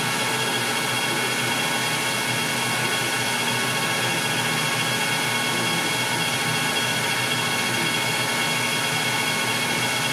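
Metal lathe running steadily with its chuck spinning: an even mechanical whir with thin high whine tones that hold constant.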